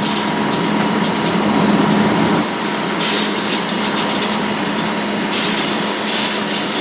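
Fire engine's engine and pump running steadily, a loud mechanical hum with hiss over it; the low hum drops away about two and a half seconds in.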